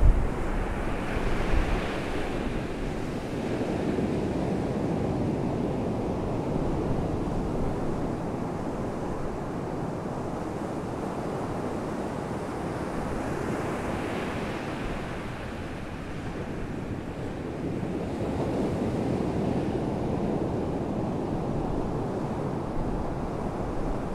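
Muffled underwater water noise picked up by a GoPro in its waterproof housing: a steady wash without distinct strokes that swells twice, near the start and about halfway through.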